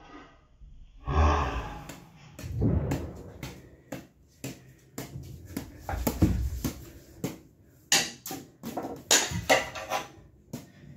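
Irregular sharp taps of a badminton racket hitting a bounced object, several a second at times, mixed with dull thumps of a person shifting and crouching on a wooden floor.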